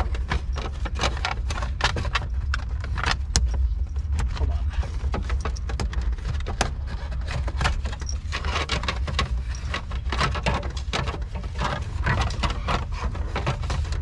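Plastic steering-column shroud being handled and pressed into place: irregular clicks, knocks and rubbing of plastic trim pieces, over a steady low rumble.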